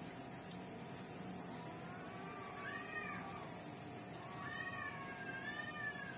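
A cat meowing twice off-camera: two drawn-out calls that rise and fall, the first about two seconds in and a longer one near the end. A faint steady hum lies underneath.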